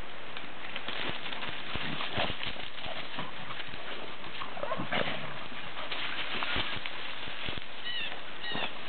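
Golden retriever puppies running and playing through dry grass and dead leaves: irregular thudding paw falls over a constant rustle of the dry ground cover. Two short high chirps near the end.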